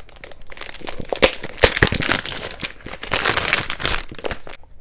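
Clear cellophane wrap being torn and peeled off a perfume box, crinkling and crackling in a quick run of crackles, thickest from about one to four seconds in.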